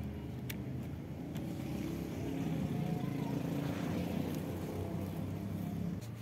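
Steady low rumble of a running engine, with a couple of faint clicks in the first second and a half.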